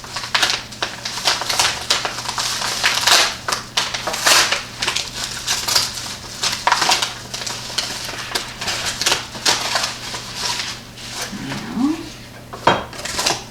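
A package being torn open and unwrapped by hand: irregular rustling, crinkling and tearing of the packaging.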